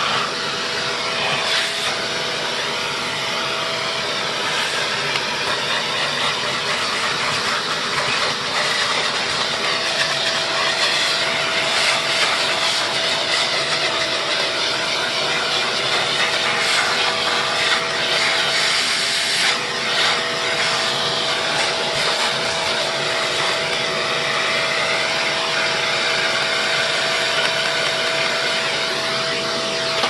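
Vacuum cleaner motor running steadily: a rush of air with a constant whine over it.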